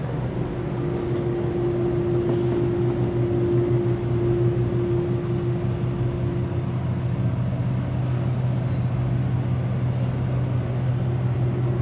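Steady machine hum: a low drone with a higher steady tone above it, over a constant hiss.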